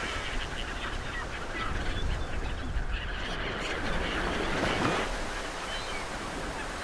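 Ocean surf and wind washing steadily, with many short bird calls scattered over it.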